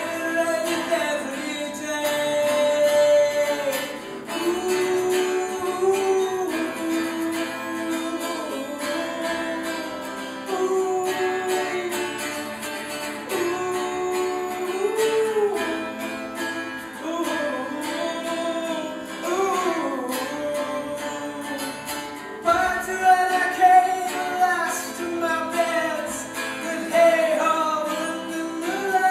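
A solo voice singing a melody to acoustic guitar accompaniment, with held notes that slide between pitches.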